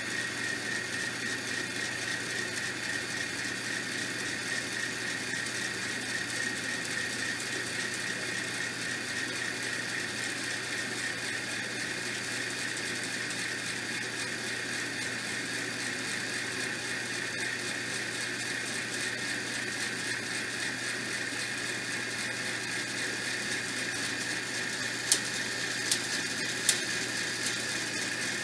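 Small electric lift motor of a CoasterDynamix model roller coaster running steadily with a constant whine as the chain hauls the train up the lift hill, with a fast, continuous clicking from the chain mechanism. Three sharp clicks near the end as the train nears the crest.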